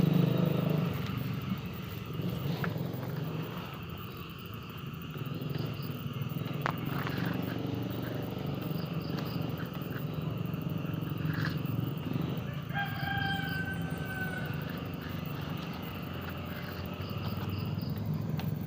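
A rooster crowing once, a drawn-out call of about a second and a half, over a steady low hum.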